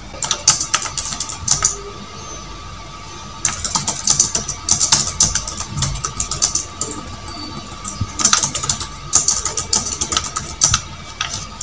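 Typing on a computer keyboard: bursts of rapid key clicks with short pauses between them, over a faint steady hum.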